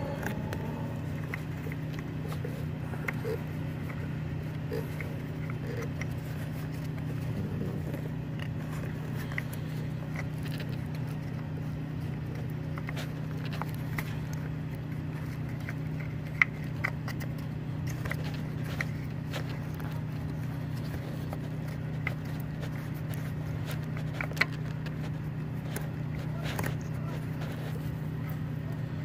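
A steady low hum, with light clicks and taps now and then as hands fit a camshaft position sensor into the engine; two sharper clicks come about halfway through and near the end.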